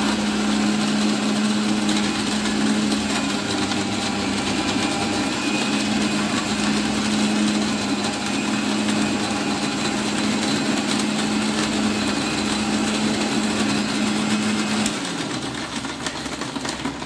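Electric mixer grinder with a steel jar running steadily, crushing ice. The motor switches off about fifteen seconds in and winds down.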